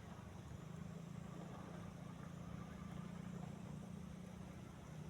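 A steady low engine hum over a faint hiss.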